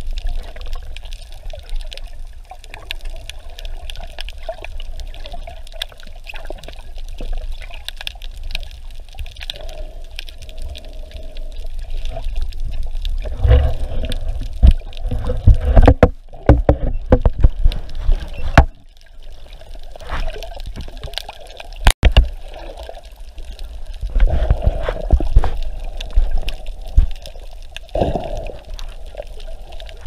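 Water moving and bubbling around an action camera held underwater just below the surface, with a steady low rumble. Louder bursts of splashing and knocks come about halfway through and again near the end.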